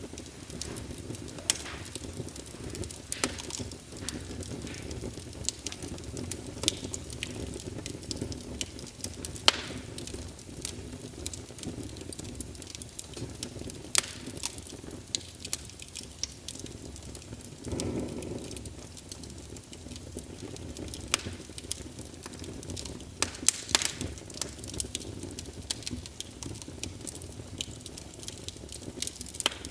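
Fire crackling: a steady low rumble of flames with irregular sharp pops and snaps, a few much louder than the rest, and a brief louder swell about halfway through.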